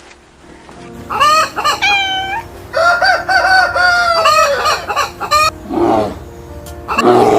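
Rooster crowing: one long cock-a-doodle-doo with a drawn-out, wavering final note, followed by a few shorter, lower clucking calls.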